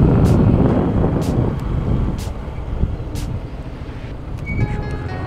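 Wind rush and the rumble of a Yamaha FZ's single-cylinder 150 cc engine, heard from a helmet microphone while riding through a right turn; loudest at first, easing after a second or two. A faint tick comes about once a second for the first three seconds, and background music comes in near the end.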